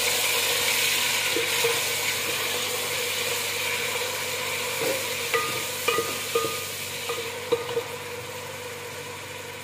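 Chopped onions sizzling in hot ghee in an aluminium pot, the sizzle slowly easing. A wooden spatula stirs them, knocking against the pot several times in the second half.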